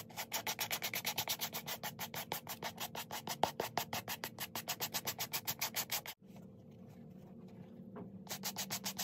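Stiff-bristled suede brush scrubbing the dry suede of a leather handbag in quick back-and-forth strokes, about five a second. The strokes break off about six seconds in and start again near the end.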